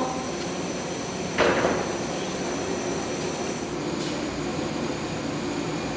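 Steady hum of equipment in a liquid-nitrogen cryogenic storage room, with a short rush of noise about a second and a half in as a cryogenic freezer tank is opened and its gloved contents reached into through the nitrogen vapour.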